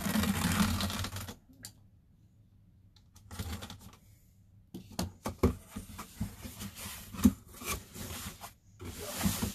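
Corrugated cardboard box being handled and opened: flaps scraping and rustling, with scattered clicks and light knocks and a louder rustle of cardboard near the end.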